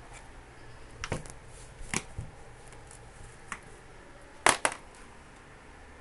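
A few scattered sharp clicks and knocks over faint room noise, the loudest double knock about four and a half seconds in: handling noise from a camera moving around a plastic laundry basket.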